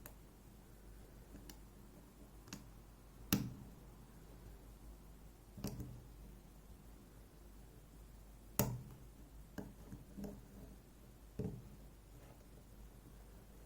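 Sharp, scattered clicks of a lock pick and tension wrench working the main pin stack of an ASSA Twin 6000 high-security cylinder, pins clicking as they are lifted. About seven irregular clicks, the loudest about three, six and nine seconds in.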